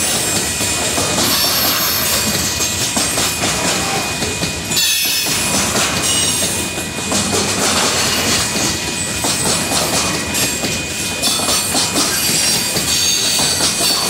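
Union Pacific grain train's covered hopper cars rolling past at speed: a loud, continuous rumble and clatter of steel wheels on the rails, with thin high wheel squeals coming and going and a brief lull about five seconds in.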